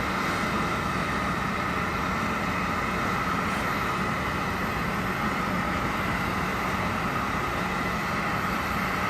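Jet airliner on the ground, its engines running steadily: a constant whine over a low hum and a wide hiss.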